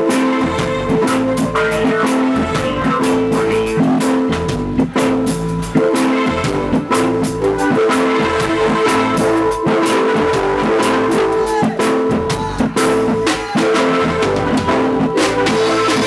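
Live band playing reggae, with electric guitar and a drum kit keeping a steady beat.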